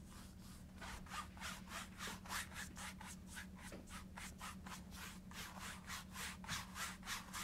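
A two-inch paintbrush stroked quickly back and forth over an oil-painted canvas, blending the dark paint: a soft, rhythmic scratching of about three to four strokes a second. A faint steady hum lies underneath.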